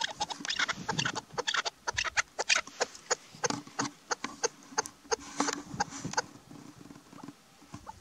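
Female chukar partridge (chakor) calling: a fast series of short, sharp clucking notes, several a second, thinning out near the end.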